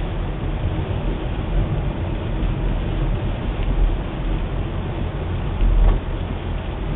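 Car driving along, heard from inside the cabin: a steady low engine and road rumble with tyre noise on a wet road. A brief low thump sounds near the end.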